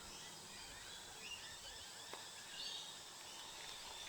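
Faint outdoor ambience: a steady low hiss with soft, repeated small chirps of wildlife and one faint click about two seconds in.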